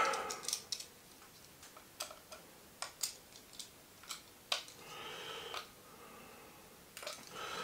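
Light, scattered clicks and ticks of a yellow utility knife being handled at a table, a few sharp taps a second apart, with a soft faint rustle about halfway through.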